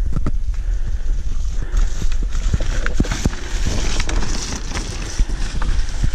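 Irregular knocks and thuds, about two or three a second, from movement along a dirt forest trail, over a low rumble of wind on the microphone, as a mountainboard rolls down the singletrack.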